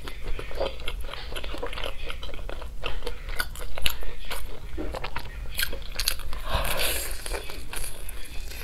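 Close-miked eating of a sauce-glazed fried chicken drumstick: crisp crunching bites and chewing, with many short, sharp clicks and a longer, denser crunch near the end.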